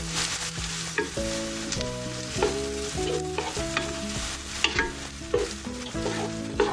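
Diced onions sizzling in hot oil in a nonstick pan, stirred with a wooden spatula that scrapes and taps against the pan now and then.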